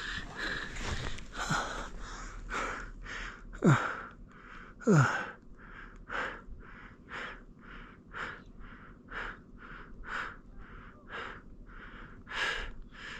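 A person panting hard, about two breaths a second, out of breath from climbing on foot at high altitude. Twice, about four and five seconds in, a breath comes out voiced and falls in pitch.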